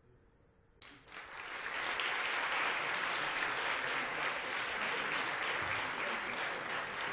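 A moment's hush, then an audience starts applauding suddenly about a second in and keeps clapping steadily.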